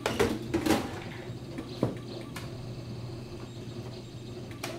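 Light handling clicks and knocks on a workbench, a few in the first second and single ones later, over a steady low electrical hum.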